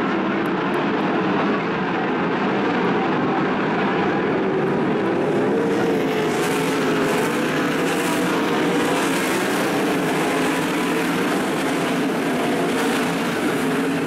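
Several 410 sprint cars' V8 engines running as the cars lap the dirt oval, a steady loud drone whose pitch wavers up and down as they go round.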